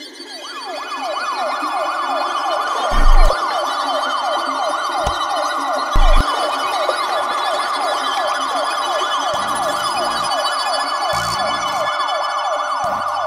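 A siren wailing in fast repeated rising sweeps, about three a second, with two heavy low thumps about three seconds apart that are the loudest sounds.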